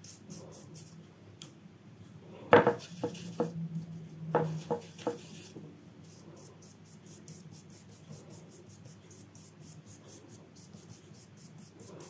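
Gouache brush dragged in repeated short strokes across paper, a dry scratchy rasp that repeats several times a second through the second half. Between about two and a half and five seconds in come a few sharp clicks and knocks.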